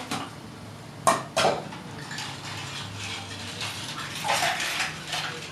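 A small plastic container knocking and clattering against a kitchen sink as it is handled: one sharp knock at the start, two more about a second in, then softer scraping and handling sounds.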